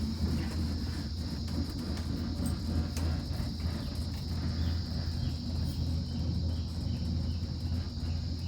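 Rainforest insects droning steadily at a high pitch, over a steady low hum.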